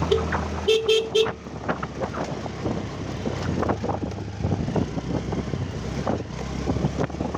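A short horn toot, then three quick toots about a second in, over a Honda scooter's engine running at low speed, with rattles and knocks as it rides over a rough, rutted dirt track.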